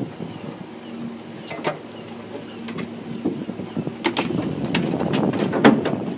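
Boat engine running with a steady low hum under wind and water noise, and a scatter of sharp knocks and clatters, the loudest a little before the end.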